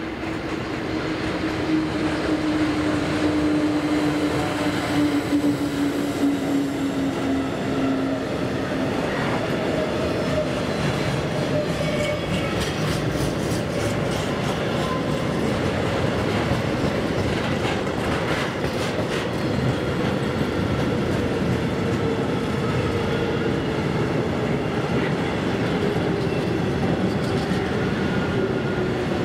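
A freight train hauled by an SBB electric locomotive passes close by, followed by a long string of tank wagons rolling past with a steady rumble. A hum sinks slowly in pitch as the locomotive goes by. Midway, the wagon wheels click over rail joints.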